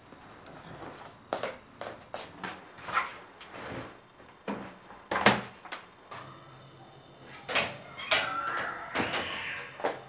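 Household handling noises: a string of sharp clacks and knocks, the loudest about five seconds in, as bedding and laundry things are moved about.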